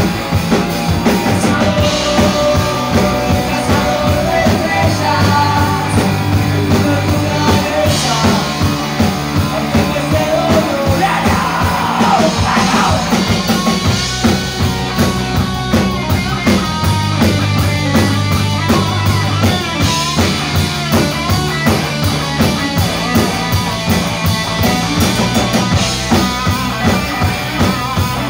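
Live rock band playing amplified: electric guitars, bass and drums, with a singer's voice over them, loud and continuous.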